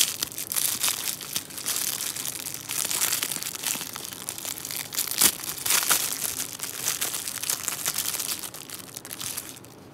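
Clear plastic wrap crinkling and crackling in hands as a camera lens filter is unwrapped: a dense stream of crackles that dies down near the end.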